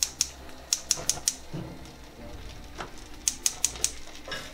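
Gas stove burner igniter clicking in two quick runs of light, rapid clicks, about six a second, as a burner is lit under a frying pan.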